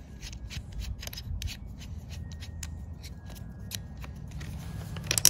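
Light clicks and rattles of a power drill's chuck and metal drill bits being handled as the bit is swapped for a 1/4 inch one, with a quick cluster of sharp clicks near the end.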